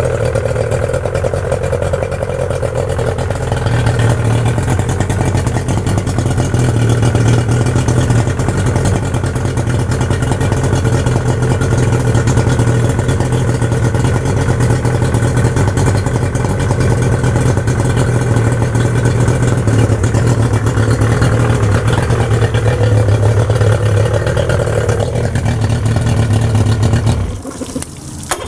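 Yamaha 90 hp three-cylinder two-stroke outboard engine running steadily on a water hose supply, a test run to check that the newly replaced water pump impeller is pumping cooling water. It gets a little louder about four seconds in, with a short break near the end.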